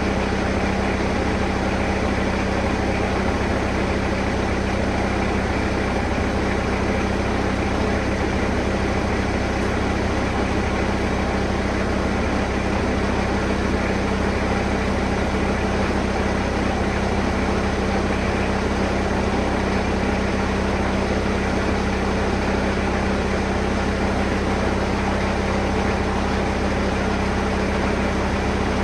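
1999 Bobcat 763 skid steer's Kubota four-cylinder diesel engine running steadily.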